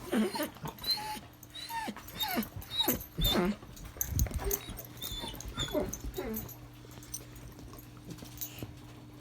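A dog whining and yelping in a quick run of short calls that each slide down in pitch. The calls thin out and grow fainter after about six seconds.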